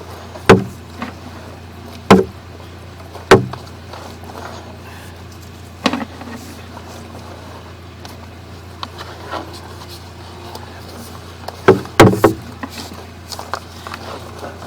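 Sharp knocks and clatters of a sewer inspection camera's push cable being worked down the line: single knocks every second or two at first, then a quick cluster near the end, over a steady low hum.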